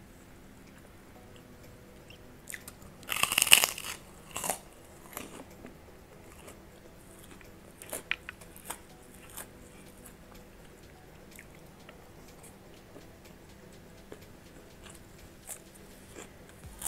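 Close-up eating sounds of someone chewing crunchy food: fried anchovies and peanuts in sambal with rice, and a kerupuk cracker. A loud burst of crunching comes about three seconds in, then scattered small crunches and clicks.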